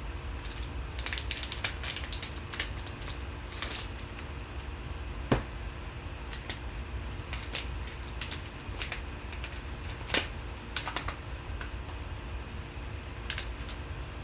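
A trading-card pack being torn open and its cards handled: irregular crinkles, light clicks and card snaps, with two sharper clicks about five and ten seconds in, over a faint steady background hum.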